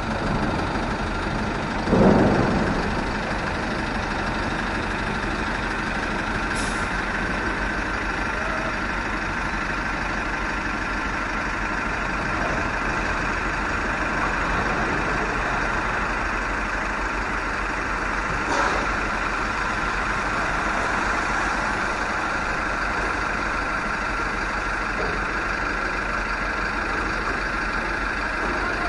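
Steady city street traffic noise, a continuous wash of vehicle sound, with a louder low rumble swelling briefly about two seconds in.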